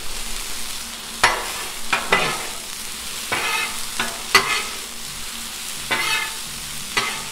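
Vegetables sizzling on a Blackstone flat-top griddle while metal spatulas scrape and clack against the steel plate, turning them. About eight sharp strikes come over a steady hiss, a few with a short metallic ring.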